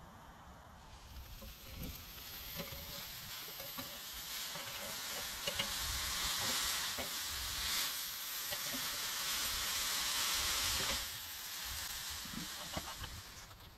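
Hamburger patties sizzling on a charcoal grill: a steady hiss with small crackles that swells from about a second in and drops off a few seconds before the end.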